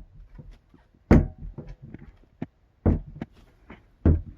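Wooden dresser door being pushed shut again and again, three sharp thuds against the frame with small clicks and rattles between. The newly fitted magnetic latch isn't holding, so the door won't stay closed.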